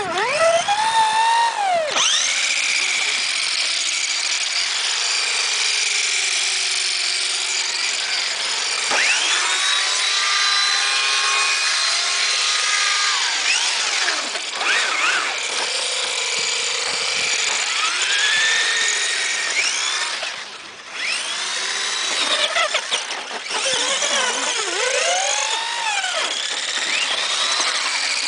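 Electric motors and gearboxes of Tamiya Lunchbox RC monster trucks whining. The pitch rises and falls again and again as they speed up and slow down, with a brief drop in level about two-thirds of the way through.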